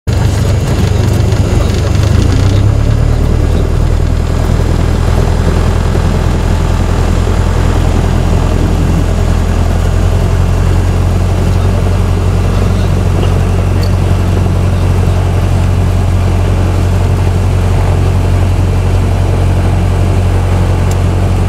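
Light aircraft's piston engine and propeller running at take-off power, a loud steady drone heard from inside the cabin, through the take-off run on lake ice and the climb-out. The sound changes slightly about two and a half seconds in, then holds steady.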